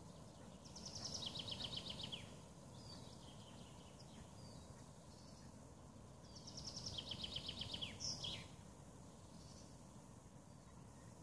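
A songbird singing two phrases about six seconds apart. Each is a quick run of repeated notes stepping down in pitch and ending in a downward flourish. Faint low background noise runs underneath.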